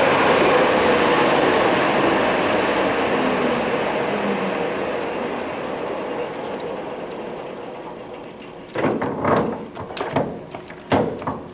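A Samstar 40160 lathe's geared headstock runs down after being stopped: the machine noise fades steadily over about eight seconds, with a faint falling gear whine. Then comes a quick series of sharp clunks and clicks as the speed selector dial is turned to shift the headstock gears.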